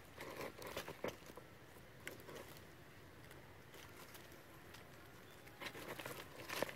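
Dry leaf litter crackling and rustling in short scattered bursts as monkeys move over it, busiest in the first second and again near the end, nearly quiet in between.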